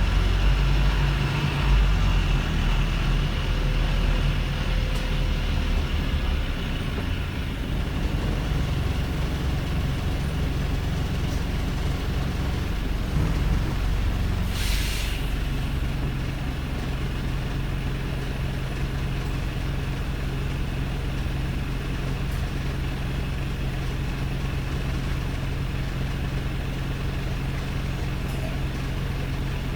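Wrightbus StreetLite's four-cylinder Daimler OM934 diesel running at a rough idle, a steady low hum. A short hiss of air is released about halfway through.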